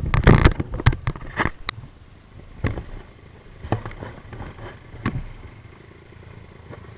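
A series of sharp knocks and clattering impacts, thickest in the first two seconds, then single knocks spread out over the next few seconds. A faint steady hum sets in near the end.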